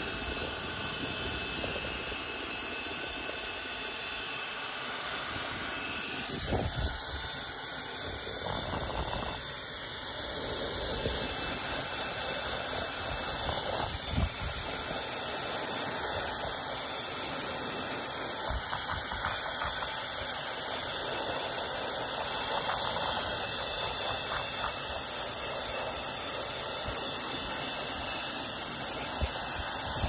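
Hair dryer running steadily: a continuous blowing hiss with a faint high whine, and a few soft knocks from handling.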